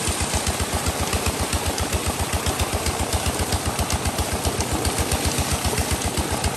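Single-cylinder 'Peter' diesel engine running a tubewell pump, a steady rapid chugging of about eight beats a second, over water gushing from the pipe and splashing into the tank.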